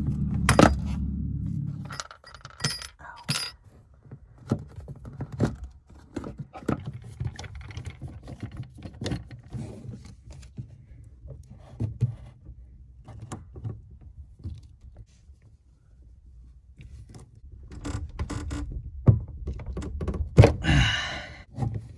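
Pliers and metal hose clamps clicking and clinking as old water hoses are worked loose from the fittings of a plastic fresh-water tank, with scattered knocks and a rustling scrape near the end. A low steady hum stops about two seconds in.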